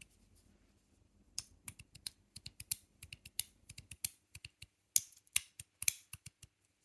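GD EDC Samsara 2.0 aluminium magnetic fidget slider being slid back and forth, snapping into place with sharp, snappy clicks. The clicks come irregularly, a few a second, beginning about a second and a half in.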